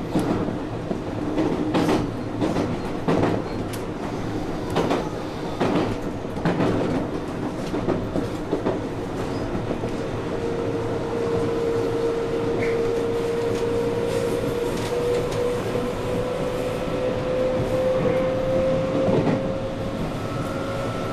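A JR West 221-series electric train running along the track, its wheels knocking over rail joints several times in the first half. From about halfway a whine slowly rises in pitch as the train gathers speed.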